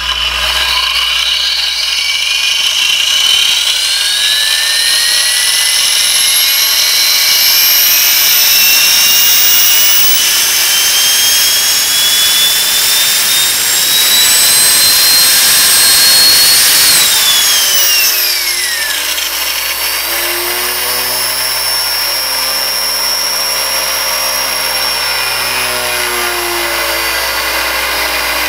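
A 3D printed plastic gear train spinning at high speed, its gear whine rising steadily in pitch for about 17 seconds as it speeds up. The whine then falls quickly and gives way to a lower, wavering hum as the drive stops and the gears coast down.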